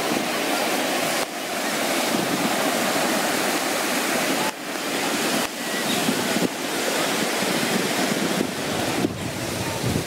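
North Sea surf washing onto a sandy beach: a steady, dense rushing noise with wind on the microphone. The sound drops abruptly several times, as at cuts between shots.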